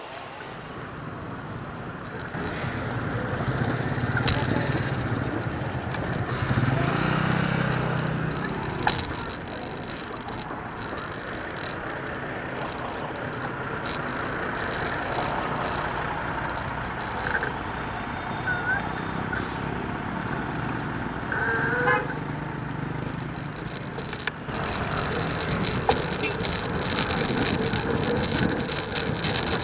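Street traffic: motorcycles and cars running past in a steady wash of engine and road noise, with a short horn toot about three-quarters of the way through.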